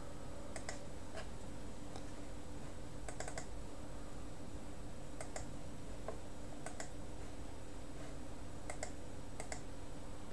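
Computer mouse button clicks while navigating menus, a few sharp clicks every second or two, several in quick pairs, over a steady low hum.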